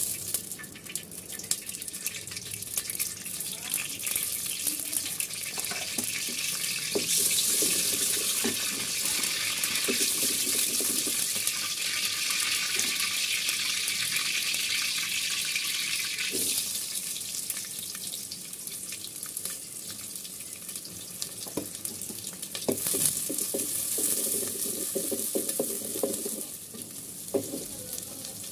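Bay leaves frying in hot oil: a steady sizzling hiss that swells for several seconds in the middle and again briefly near the end, with a few faint knocks.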